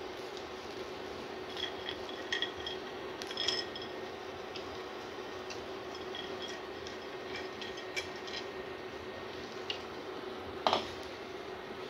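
Cashews, almonds and coconut slices dropped by hand onto rice in a metal pot: scattered light clicks and small ringing taps, the loudest near the end, over a steady low hum.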